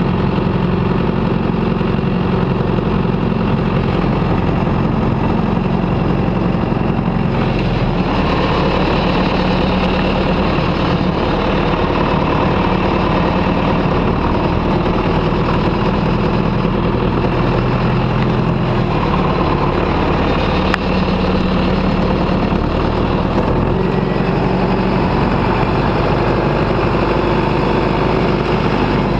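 John Deere 2140 tractor's diesel engine running steadily, its note shifting slightly a few times as the revs or load change.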